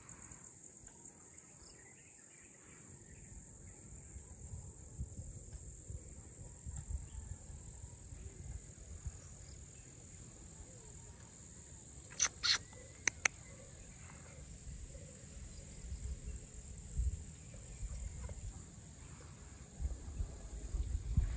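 Outdoor field ambience: a steady high-pitched drone of insects, over a low, uneven rumble of wind on the microphone. Three short, sharp chirps come a little past the middle.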